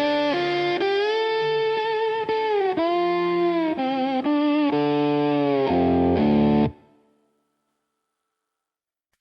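Instrumental dark country music: a sustained electric guitar lead with wavering vibrato and some distortion over a low bass note. It cuts off suddenly about two-thirds of the way in, as the track ends.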